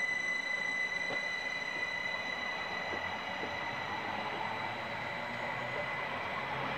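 A Class 745 electric multiple unit passing at speed: steady wheel-on-rail rushing with a few faint clicks, under a steady high whine that fades over the last couple of seconds.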